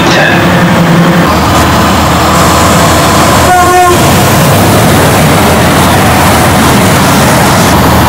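Train horn giving one short, single-note toot about three and a half seconds in, over loud, steady train noise.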